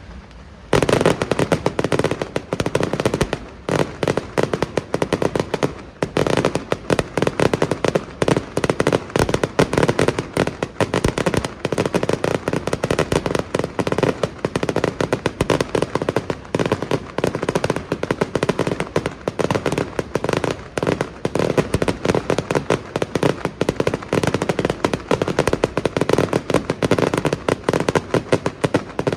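Fireworks display: a dense, unbroken barrage of rapid bangs and crackling firecracker reports, starting a little under a second in.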